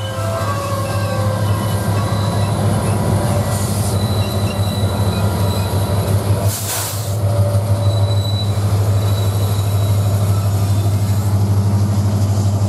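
The rear diesel locomotive of a loaded coal train passes and pulls away, its engine droning steadily, with faint wheel squeal from the curve. The drone grows louder after the locomotive goes by, and a short hiss comes about six and a half seconds in.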